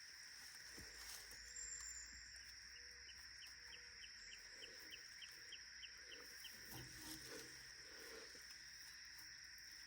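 Near silence: faint outdoor ambience with a steady high hum, and a quick run of faint animal chirps, about four a second, near the middle.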